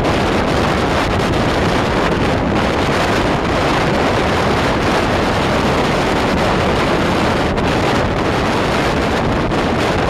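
Strong wind blowing across the microphone: a loud, steady rush with no break.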